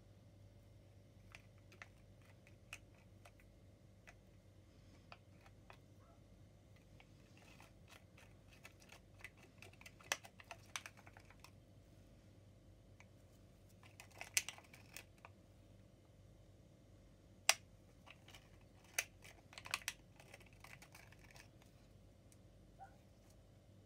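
Light, irregular clicks and taps of a wooden stir stick scraping resin out of a small plastic cup into a silicone mould, coming in short clusters with a single sharper tap now and then.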